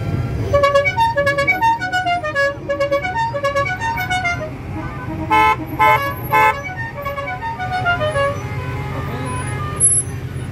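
A musical car horn playing a quick tune of short stepping notes, with three loud horn honks in the middle, over the steady low rumble of parade traffic.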